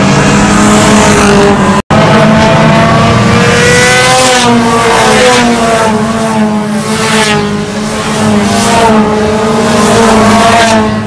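A pack of small hatchback race cars racing past close by, several engines revving hard at once, their pitch rising and falling as they accelerate and change gear through the corner. About two seconds in there is a short break in the sound.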